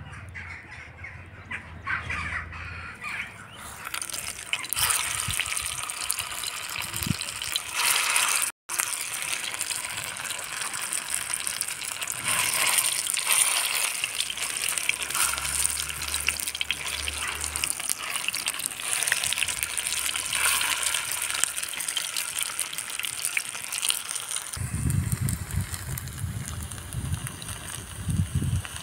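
Soya kebabs frying in hot oil in an iron pan: a steady sizzle that swells a few seconds in as the kebabs go into the oil. A low rumble joins near the end.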